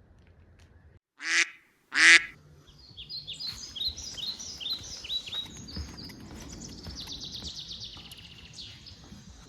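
Two loud calls, each short, about a second apart, then several small birds chirping and trilling in a busy chorus.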